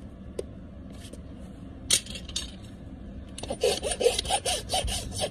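A horse's hoof being trimmed: hoof nippers snap through the hoof wall once about two seconds in, then a farrier's rasp files the hoof in quick, regular back-and-forth strokes from about three and a half seconds on.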